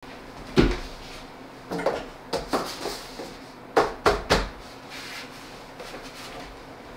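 About nine short knocks and slaps in clusters over the first four and a half seconds, the loudest about half a second in and just before four seconds in: hands bumping and tapping on a wooden school desk and a plastic helmet.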